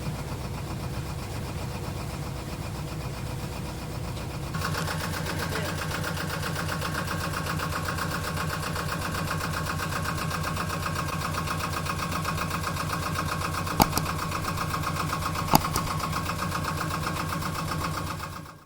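Boat engine running steadily with a fast, even pulse; it gets louder about four and a half seconds in. Two sharp clicks come near the end, and the sound cuts off suddenly just before the close.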